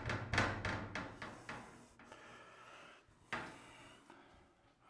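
Light knocks and clatter from handling at a frameless glass shower door: a quick run of knocks in the first second and a half, then a single knock about three seconds in.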